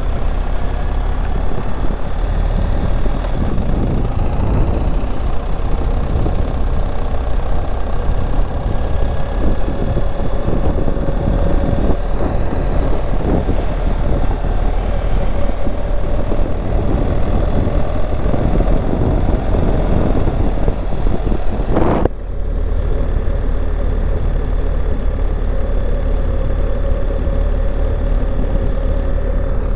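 Steady low rumble of a vehicle's engine running, heard from inside the cab, with a faint steady tone above it. The sound breaks off abruptly about two-thirds of the way through and resumes much the same.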